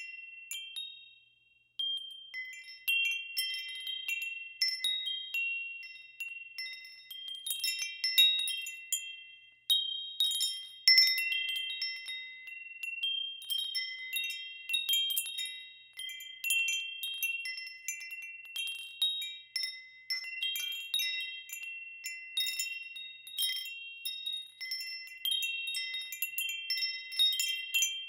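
Wind chimes ringing: several clear, high tones struck at irregular moments, overlapping and ringing on, with a brief lull about a second in.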